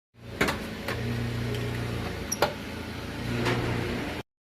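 Car engine running steadily, with a few sharp clicks and knocks over it.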